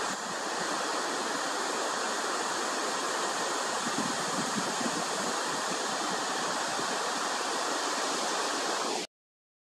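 A steady, even rushing hiss, with no distinct events in it, that cuts off suddenly near the end.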